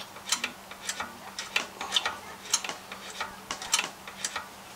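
Stiff, gummed-up throttle linkage on an old Honda pressure washer engine being worked back and forth by hand to free it, giving a string of sharp, irregular metal clicks and clacks, about three to four a second.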